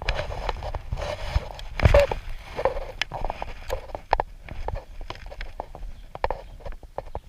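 Irregular knocks and taps of fishing gear being handled against a kayak hull, several a second, with a louder clatter about two seconds in.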